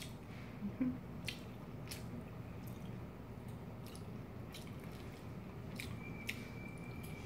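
Close-miked wet chewing and squishing of spaghetti and green onion kimchi, with occasional sharp clicks. A faint steady high tone comes in about six seconds in.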